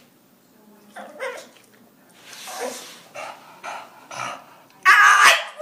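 English bulldog vocalizing in a string of short sounds, the loudest a burst near the end, the kind of back-and-forth 'talking' a dog does in answer to its owner.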